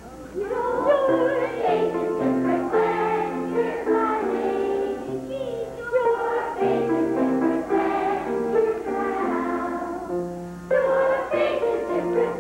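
A group of young children singing a song together, with an accompaniment of steady held low notes.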